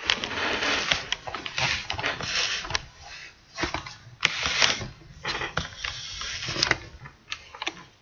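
Irregular rustling and scraping handling noise close to the microphone, with scattered light clicks, dying down near the end.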